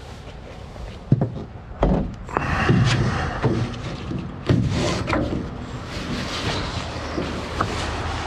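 A canoe being strapped to a roof rack: nylon straps rubbing and slapping against the hull, with sharp knocks about one, two and four and a half seconds in.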